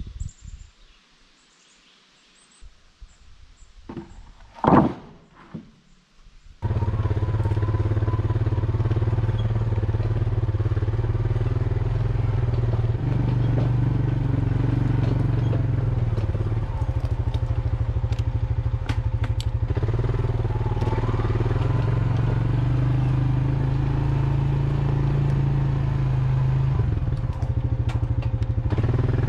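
A small gasoline engine runs steadily at high speed, coming in abruptly about six and a half seconds in. Before it there is a quieter stretch with one sharp knock about five seconds in.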